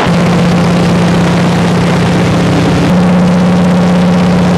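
De Havilland Beaver's engine and propeller in cruise flight, a loud, steady drone heard inside the cabin.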